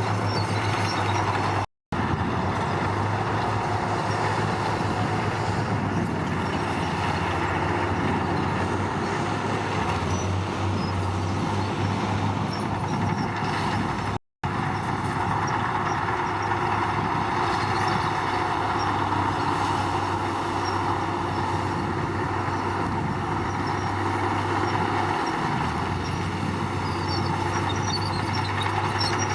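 Komatsu D53 crawler bulldozer's diesel engine running steadily, with a constant low drone and machinery noise. The sound cuts out briefly twice, about two seconds in and about fourteen seconds in.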